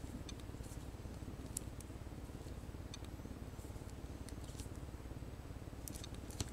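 Faint clicks and flicks of baseball cards being thumbed through and sorted by hand, over a low steady hum; one sharper click comes just before the end.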